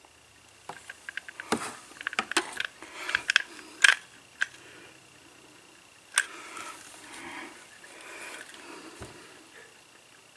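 Hot glue gun being worked around a speaker in a plastic case: a quick run of clicks and taps from the trigger and the nozzle against the speaker and housing, busiest in the first four seconds, with one sharper knock about six seconds in and softer handling noise after it.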